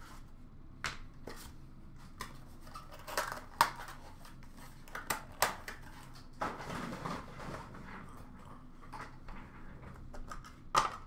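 Hands handling a trading-card box and cards, with scattered sharp clicks and taps and short stretches of cardboard and plastic rustling.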